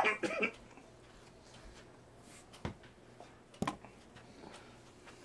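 A brief human vocal sound right at the start, then a dog licking out an empty bowl: faint, scattered licking ticks with two sharper clicks about a second apart near the middle.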